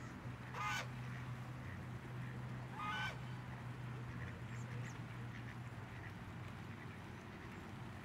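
Two short waterfowl calls, one just under a second in and another about three seconds in, over a steady low hum.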